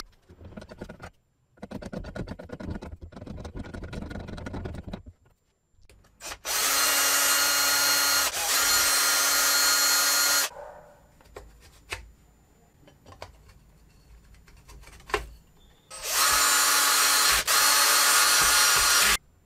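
A drill bit cutting into aluminium plate for about five seconds, with a rough, uneven grinding sound. Then a cordless drill runs at full speed with a steady whine in two spells of about four and three seconds, each briefly stopping partway through, as it drives into the aluminium chassis plate.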